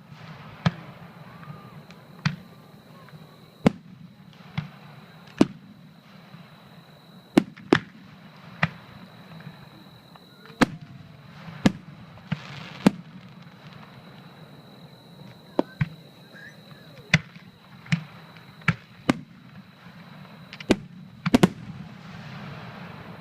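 Fireworks going off: some twenty sharp, short bangs at irregular intervals, sometimes two close together. A thin steady high tone and a low hum sit underneath.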